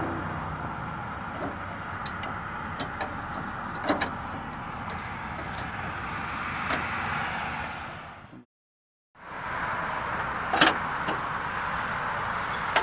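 Sharp metal clicks and clanks from the mower deck's height-adjustment linkage and its anti-scalp wheel bracket being set by hand, the loudest about two-thirds of the way through, over a steady low rumble; the sound cuts out for under a second about two-thirds in.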